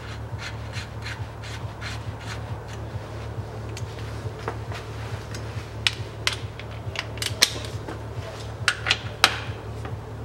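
Irregular metallic clicks and taps of hand tools on the rear differential's fill plug as it is threaded in and tightened with a ratchet wrench, the loudest few clicks a little past the middle, over a steady low hum.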